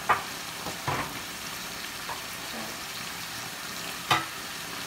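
Steady sizzling from a baking pan of sliced beef, onions and potatoes on the heat, with three sharp knocks against the pan: one at the start, one about a second in, and one near the end.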